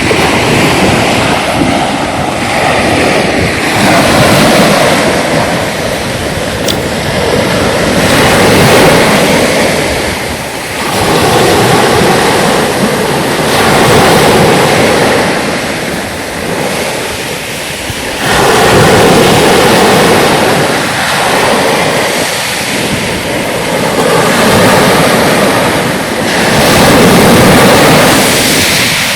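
Sea waves breaking and washing on the shore, surging in loud swells every few seconds.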